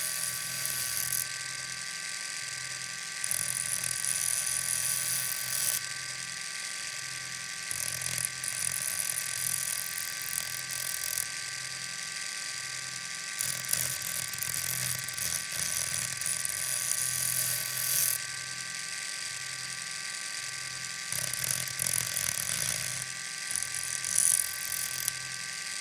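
Knife being sharpened on an electric motor: the motor runs with a steady whine, and each time the blade is pressed to it a high grinding hiss lasting a few seconds joins in, about six passes in all.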